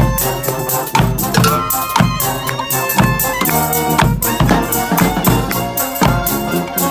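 Live street band playing a tune: held horn notes and other melody instruments over drums, with a bass drum hit about once a second.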